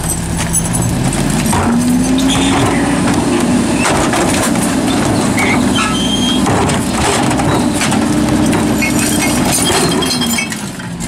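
Diesel engine of a Mack MR rear-load garbage truck revving up to a raised idle and holding there while the McNeilus hydraulic packer cycles, then dropping back about ten seconds in. Knocks and clatter from a plastic recycling cart being tipped into the hopper run over it.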